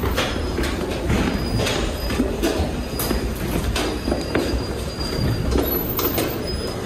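Footsteps of several people climbing stairs together, about two or three steps a second, over a steady low rumble.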